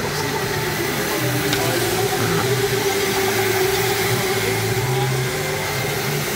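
Electric go-karts running laps around an indoor track: a steady motor whir with a held whine, rising and falling a little as the karts pass.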